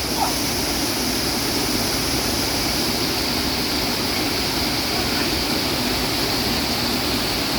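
Waterfall rushing steadily, extremely loud, with no change in level throughout.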